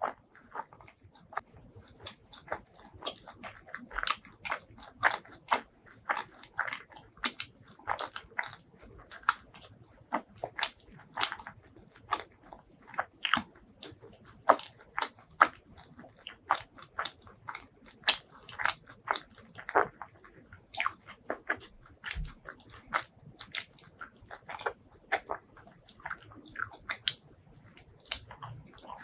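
Close-miked eating: a person biting and chewing spicy food, with a dense, irregular run of short crunchy mouth clicks, several a second.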